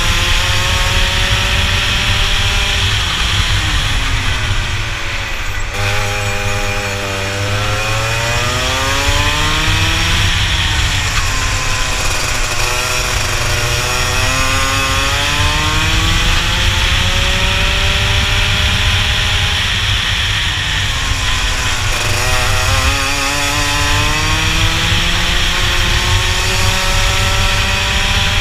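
Rotax two-stroke kart engine at racing speed, heard from the kart itself. Its pitch drops sharply about three times as the kart slows into corners and climbs back each time as the throttle opens.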